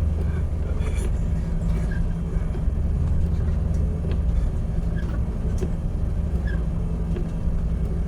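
Ship's engine running with a steady low drone, with a few faint clicks and rattles over it.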